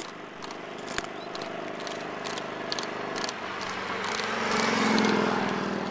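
Bicycle coasting fast downhill on asphalt: steady tyre and road noise with sharp rattles from the bumpy ride, swelling louder about four seconds in as speed builds.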